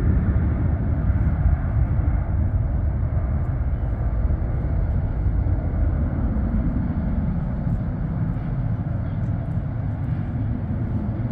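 Boeing 757-24A(PF) freighter's twin Pratt & Whitney PW2040 turbofans at takeoff power as the jet lifts off and climbs out: a steady low rumble that slowly fades toward the end.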